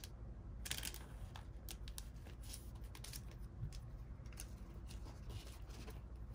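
Trading cards being slid into soft plastic card sleeves: a faint, irregular series of short scratchy rustles and scrapes of card against plastic.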